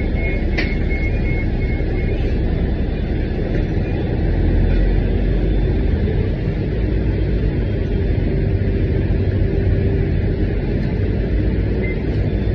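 Steady engine and road rumble heard from inside a city transit bus while it drives, with a faint broken high tone in the first couple of seconds.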